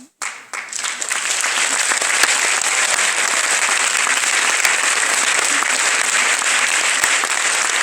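Audience applauding. The clapping starts suddenly, swells within about a second and then keeps up steadily.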